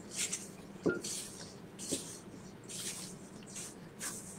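A spatula stirring and scraping dry, crumbly cookie dough around a stainless steel mixing bowl: repeated short scraping swishes, with a couple of light knocks against the bowl about one and two seconds in. The dough sounds dry because it was made without its egg.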